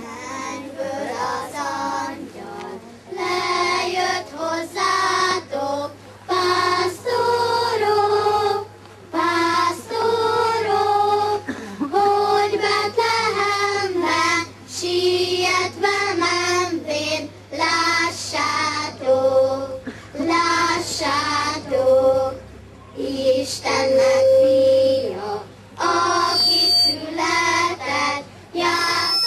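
A group of children singing together, phrase after phrase with short breaks between them.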